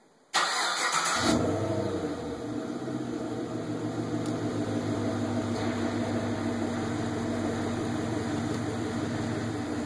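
A 2011 Camaro SS's 6.2-litre V8 with a Flowmaster exhaust being remote-started. It catches suddenly just after the start, flares up loudly for about a second, then settles into a steady idle.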